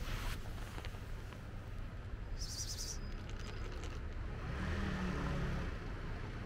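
Street ambience: a steady low rumble of traffic, with a short high bird chirp about two and a half seconds in and a brief swell of a passing vehicle around five seconds.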